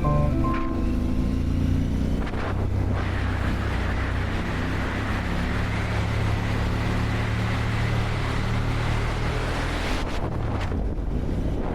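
Motorcycle riding at speed: the Harley-Davidson Pan America 1250S's V-twin engine hums steadily under heavy wind rush on the microphone. A music track fades out in the first couple of seconds.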